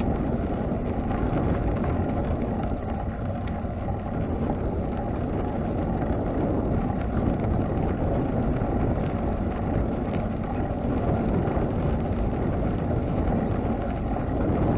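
Steady wind rumble on the microphone of a camera riding along a path, mixed with the rolling noise of tyres on the gravel surface.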